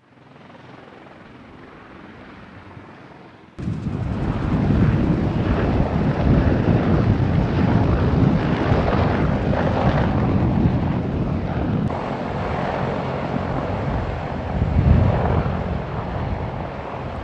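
Several military helicopters running close by, including UH-1Y Venoms and a CH-53E Super Stallion: a dense, steady din of rotors and turbine engines. It is fainter for the first few seconds and much louder from about three and a half seconds in.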